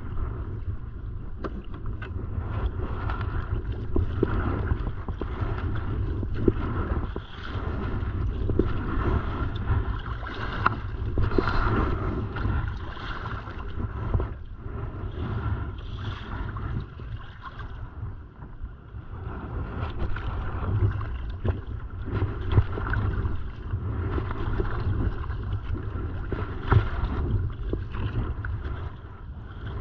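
Kayak paddle strokes and water splashing around the hull, with a steady low wind rumble on the microphone and irregular louder surges.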